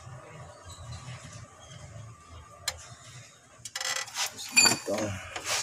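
Metal tools and engine parts clinking and rattling: a single click about two and a half seconds in, then a run of sharp clinks from about four seconds in, the loudest with a short metallic ring.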